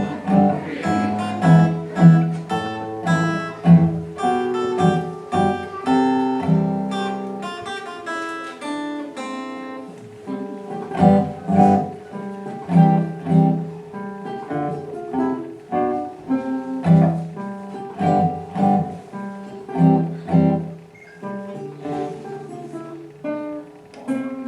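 Acoustic guitar music: many quick plucked notes, some strummed, over a long held tone underneath.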